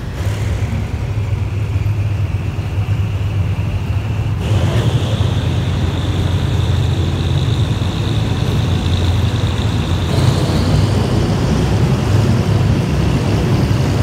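Passenger train carriage rolling along the track, heard from an open window: a steady low rumble with a high whine over it that steps up in pitch about four and a half seconds in and again near the end.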